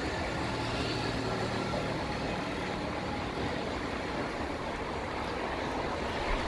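Steady rumble of city road traffic, even throughout with no distinct events.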